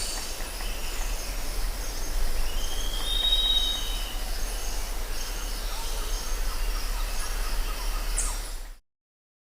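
Jungle ambience: a steady dense hiss with birds whistling and chirping over it, including one long whistled call about three seconds in. The sound cuts off abruptly near the end.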